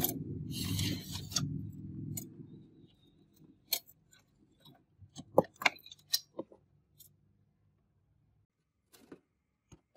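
Hands working on a steel computer case: a scraping rustle about a second in, then scattered sharp clicks and light rattles as cables and parts are pulled out. A low rumble underneath fades out within the first three seconds.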